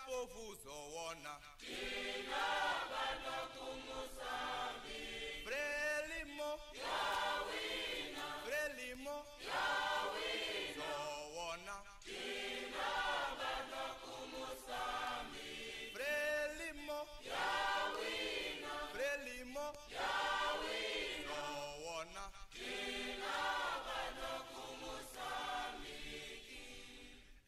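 Voices singing a chant-like song in phrases a few seconds long, with short breaks between them.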